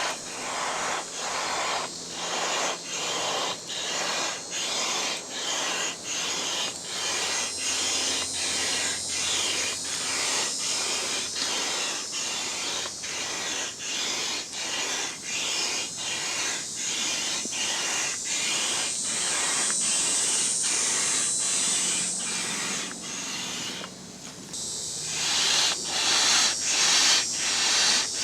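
Air pump hissing as it inflates a large vinyl pool toy through its valve, pulsing about twice a second. The flow steadies for a few seconds past the middle, drops briefly near the end, then comes back louder.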